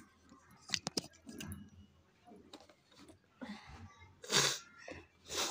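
A cardboard parcel being handled and turned over: a few sharp clicks about a second in, then brushing and scraping of hands on the box, loudest a little after four seconds.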